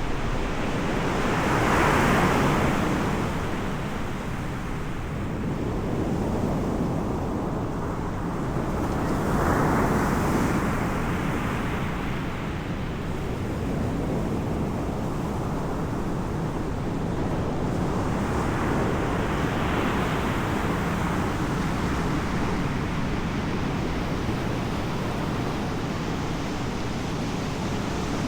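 Sea waves breaking on the shore: a steady wash of surf that swells three times, about two, ten and twenty seconds in, with wind buffeting the microphone.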